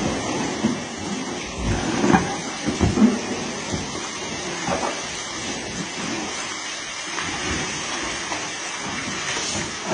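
Baby elephant splashing and rolling in an inflatable paddling pool: a steady rush of sloshing water with irregular heavy thumps, the biggest ones about two to three seconds in.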